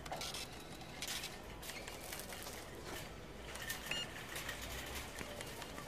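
Supermarket checkout ambience: faint rustling and scattered light clicks of goods being handled, with a short electronic beep about four seconds in.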